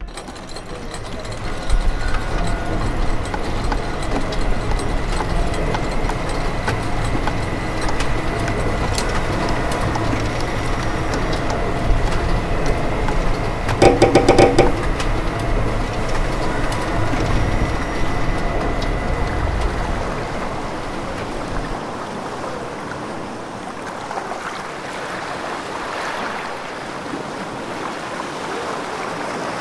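Electronic sound-design soundtrack: a deep, steady low drone under a thin high tone, with a short burst of rapid clicks and a pitched chord about halfway through. About two-thirds of the way in the drone drops away, leaving a softer, even wash of noise.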